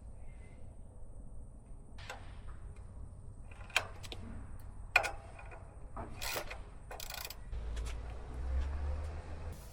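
Scattered sharp clicks and knocks of metal hardware being handled while winch cables are connected, with two louder knocks about four and five seconds in and a couple of short rasps after them. A low rumble comes in near the end.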